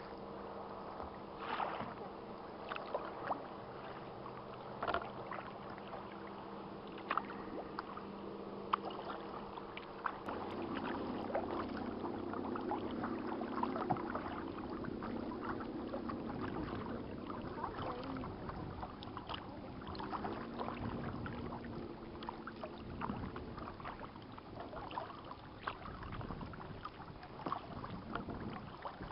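Kayak paddles dipping and splashing in lake water, stroke after stroke, over a steady low hum that shifts in pitch about ten seconds in.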